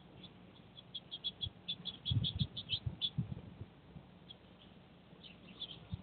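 A small songbird chirping: a quick run of short high chirps, about five a second for around two seconds, then a few scattered chirps near the end. Dull low thumps sound in the middle of the run.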